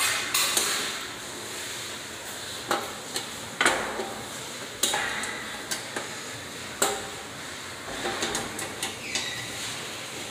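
Irregular sharp clicks and knocks of hard, metal-sounding parts while a breaker panel is being worked on, with a quick cluster of clicks near the end, most likely as its cover is fitted.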